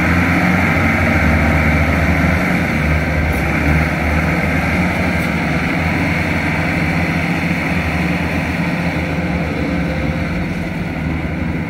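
Rice combine harvesters' diesel engines running together under load as the machines haul through deep paddy mud: a loud, steady drone that eases slightly near the end as they move away.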